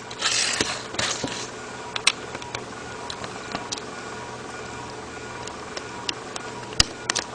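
Small T5 Torx screwdriver working a tiny screw out of a BlackBerry Bold's housing: a scratchy rustle for about the first second and a half, then scattered faint ticks and a sharp click near the end.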